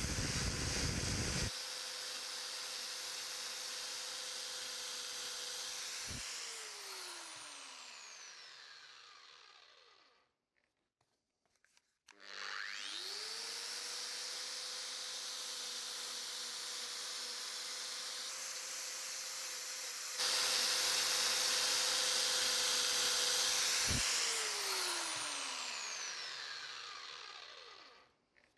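Small handheld power carving tool grinding into ash wood, then switched off with a click and winding down in falling pitch. After a short silence it starts up again with a rising whine, runs freely at a steady hum, cuts into the wood again for about four seconds, and is switched off and winds down.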